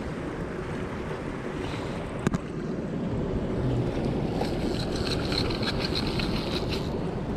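Steady rush of flowing river water with wind buffeting the microphone. A sharp click comes about two seconds in, and a run of rapid fine ticking from about four and a half seconds to near the end.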